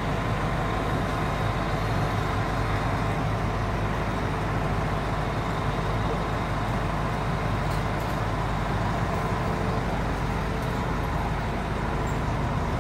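Fire engine's diesel engine running steadily close by, a constant low drone with no siren or horn.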